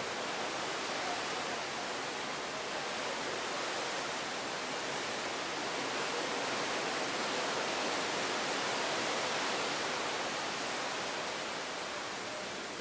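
Steady rush of sea water streaming and breaking along the side of a moving cruise ship's hull, an even hiss that swells a little midway.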